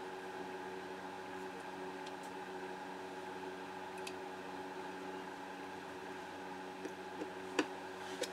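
Steady electrical hum with several constant tones, and a few light metallic clicks near the end as small steel parts are fitted into a Vz.50 pistol slide by hand; the sharpest click comes about seven and a half seconds in.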